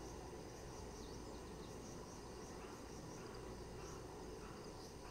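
Faint outdoor ambience: insects chirping high and thin in scattered short bursts over a low steady rumble.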